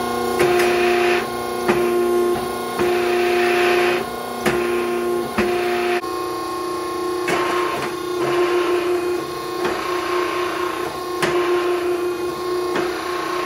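Electric motor and hydraulic pump of a 12-ton hydraulic forging press running with a steady hum. The foot pedal's control valve is shifted several times, and each time there is a stretch of rushing hiss as the ram is driven, with sharp clicks as the valve opens and closes.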